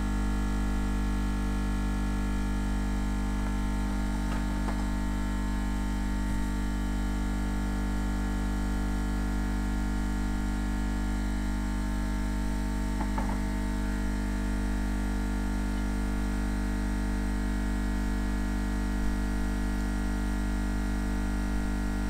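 Steady electrical mains hum with a buzz of many overtones over a faint hiss, unchanging throughout.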